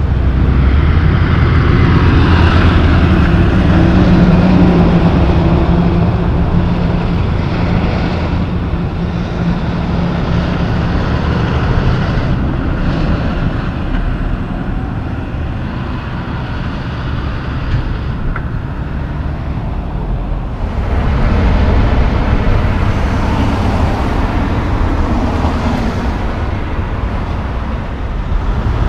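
Diesel engine of a loaded logging truck pulling by on the road with tyre noise, amid passing traffic. It is strongest at the start, eases off in the middle and swells again later on.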